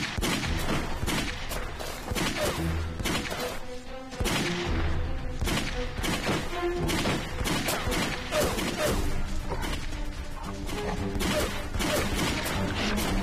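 A handgun fired over and over in a long string of shots, with music underneath.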